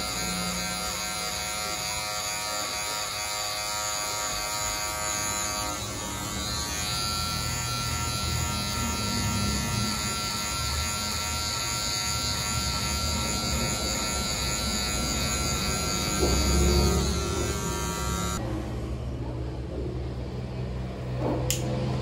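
Electric hair clippers running with a steady hum, stopping abruptly about three-quarters of the way through; a sharp click near the end.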